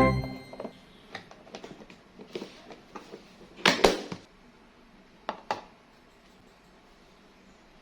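Light kitchen handling sounds: scattered clicks and knocks, with two louder clatters, one at about three and a half seconds and one at about five seconds, then a quiet room.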